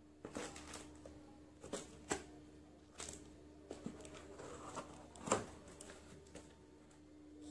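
Cardboard shipping box being pulled open by hand: scattered crackles and rustles of the cardboard flaps, the loudest about five seconds in.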